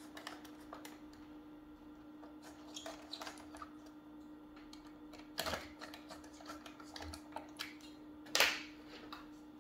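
Light plastic clicks and taps from handling the parts of a Roomba robot vacuum turned upside down, with two louder clatters about five and a half and eight and a half seconds in, over a faint steady hum.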